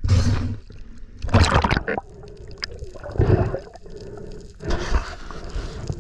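Water sloshing and gurgling around the microphone, in irregular loud surges about every one and a half to two seconds over a constant low rumble.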